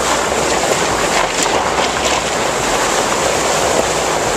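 A vehicle's tyre churning through shallow river water, with steady splashing and spray close to the microphone.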